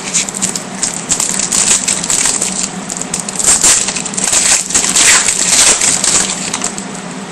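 Foil trading-card pack wrapper being torn open and crinkled by hand, an irregular crackling that is loudest in the middle.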